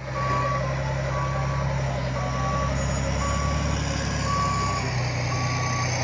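Reversing alarm of an LGMG MT60 mining dump truck, a single tone repeating about once a second with each beep about half a second long, over the steady running of the truck's diesel engine.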